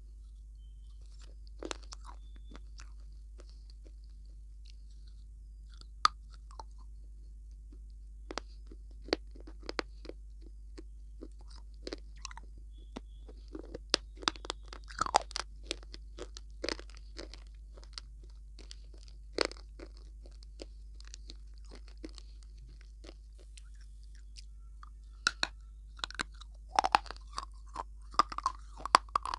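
Close-miked eating of hard, brittle pieces: sharp separate crunches and bites with chewing between them. They are sparse at first and come more thickly in the middle and near the end.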